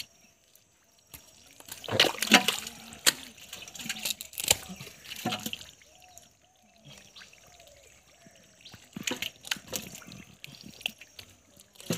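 Hands splashing and squelching through shallow muddy water and mud, a run of irregular wet slaps and sloshes that comes in two busy stretches with a quieter spell between them.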